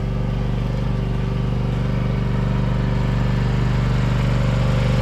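John Deere X570 garden tractor engine running steadily at an even speed.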